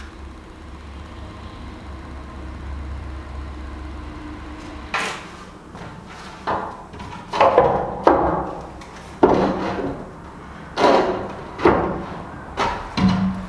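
Long wooden boards knocking and clattering against a wall and floor as they are handled and stood on end: a string of sharp wooden knocks starting about five seconds in, after a steady low hum.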